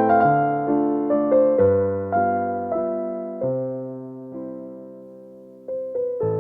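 Gentle background piano music: single notes and chords that ring and fade away. The playing slows and dies down about two-thirds of the way through, then picks up again just before the end.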